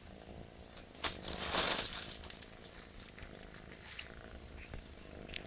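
A plastic bag crinkling in one short rustle about a second in, with a few lighter crackles after it. Under this a Persian cat purrs low and steadily.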